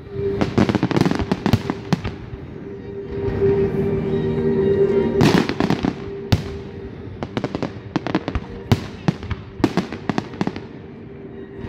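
Aerial fireworks shells bursting overhead in many sharp, irregularly spaced bangs, with crackling between them.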